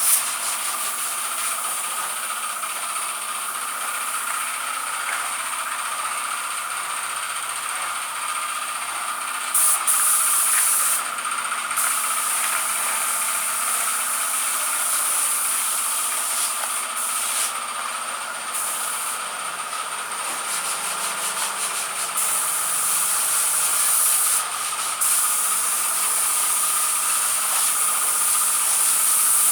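Compressed-air paint spray gun hissing steadily as paint is sprayed onto a car body, the high part of the hiss cutting out briefly several times.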